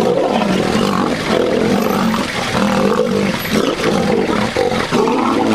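Two male lions fighting, roaring at each other in a near-continuous run of loud calls with only brief breaks.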